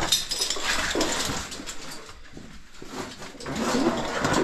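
Boots, gloved hands and clothing scraping and scuffing against rock and mud as a caver climbs down a tight passage, with small knocks.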